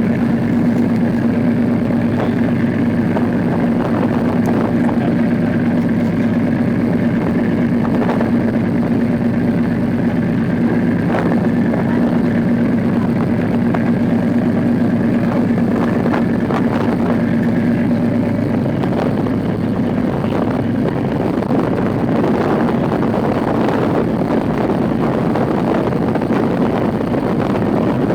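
Pleasure boat's engine running steadily under way, heard on board as a constant low drone.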